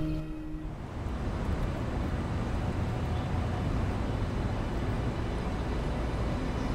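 Street traffic: cars driving past on a town street, a steady wash of engine and tyre noise.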